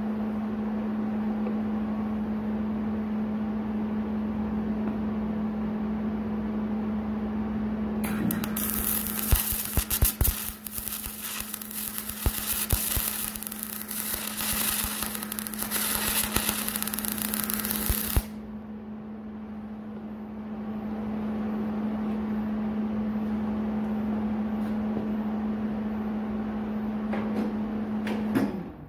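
Aluminum MIG welding with a Miller Spoolmate 100 spool gun on a Millermatic 211, heat turned down: the arc starts about eight seconds in, hisses and crackles for about ten seconds, then cuts off sharply. A steady hum runs underneath and stops near the end.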